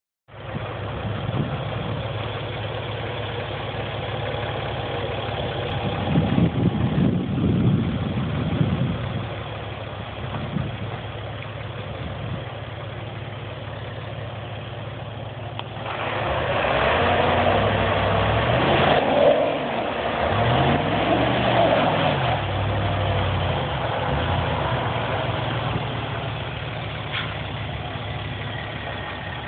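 Ford F-150 pickup engine running under load, revving up and down several times, strongest about halfway through, as it strains on a tow strap to drag a stuck dump truck out of deep snow.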